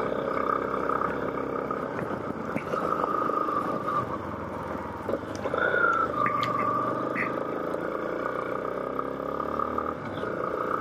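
Motorcycle engine running while riding on a dirt road, a steady drone whose pitch rises briefly about halfway through as the throttle opens, then settles again.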